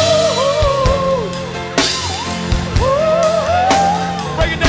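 Live band music: a drum kit keeping a slow beat under a lead melody line that bends and slides in pitch.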